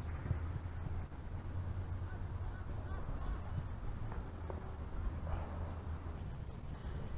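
Steady low rumble of wind buffeting the microphone, with a thin high whine that starts near the end.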